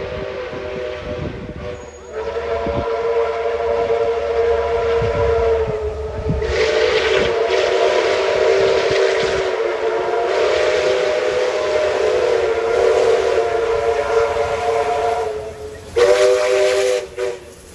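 Steam locomotive whistles blowing long, held chime blasts as two steam locomotives come on at speed, with a hiss of steam and exhaust beneath. The whistles break off briefly about two and six seconds in. A last short blast sounds near the end.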